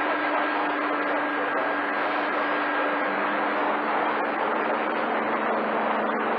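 CB radio receiver on channel 28 (27.285 MHz) giving a steady hiss of static while it listens for skip, with faint whistling tones in the noise that change pitch about halfway through.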